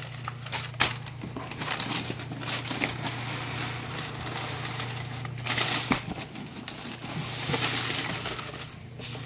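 Brown kraft packing paper crumpling and rustling as it is pulled out of a cardboard shipping box, with the box flaps scraping and a few sharp clicks.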